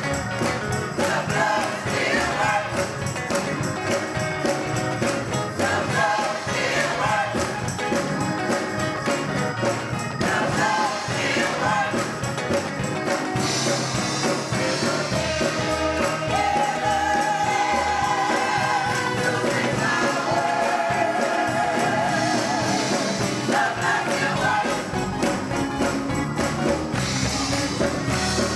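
Gospel music: a choir or group of singers over a band, with a steady beat. Held sung notes with vibrato come about two-thirds of the way through.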